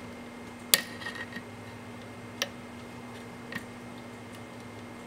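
Wire cutters snipping the soldered leads of an infrared receiver on a circuit board: three sharp snips, the first about a second in and the loudest.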